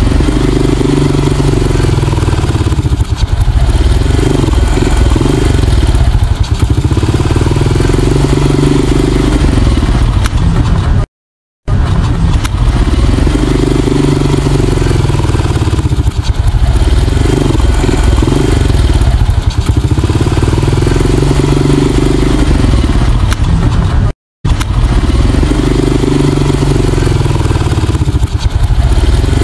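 Honda Astrea underbone moped's small four-stroke engine being revved, the revs swelling and falling again and again. The sound breaks off into silence twice for a moment.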